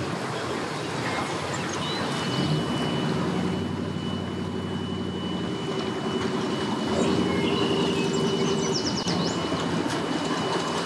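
An engine running steadily at low revs from about two seconds in, easing off near the end. A thin steady high whine runs alongside it.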